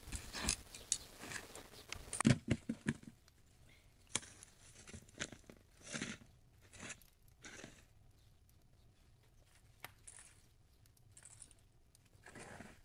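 A metal rod scraping and raking through ashes and embers in a floor fire pit where bread is baked, with a quick run of knocks a little over two seconds in, then scattered short scrapes and rustles.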